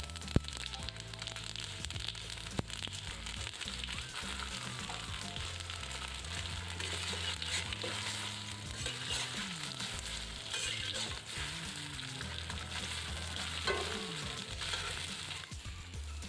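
Idli pieces frying in hot oil, a steady sizzle that grows louder from about seven seconds in until near the end. Background music plays underneath.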